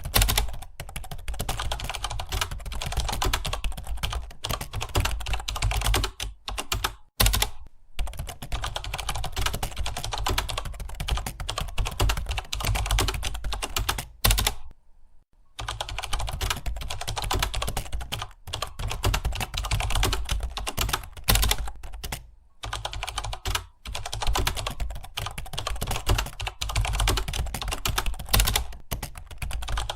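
Fast, continuous typing on a computer keyboard, the keys clattering in quick runs. It breaks off for a few brief pauses, the longest about a second midway.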